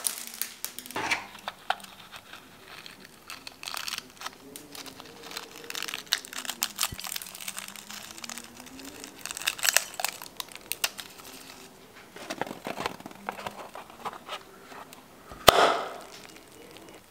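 Scissors snipping small rubber balloons over a glass bowl of slime: a string of small sharp clicks and crinkles, with a wavering rubbery squeak in the middle as a balloon is squeezed out. Near the end, one loud sharp pop as a balloon is cut open.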